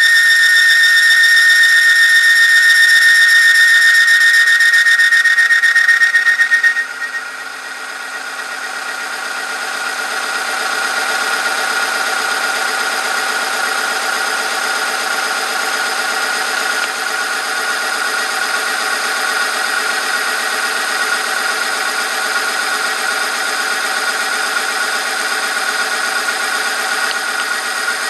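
Oil film friction testing machine running under load: its metal test sample squeals against the spinning roller. A high, steady whistling squeal about seven seconds in abruptly turns into a lower, rougher squeal that swells back up and holds.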